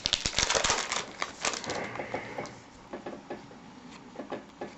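Baseball cards and pack wrappers being handled and flipped through: a quick run of clicks and taps, busiest in the first second, thinning to a few faint taps.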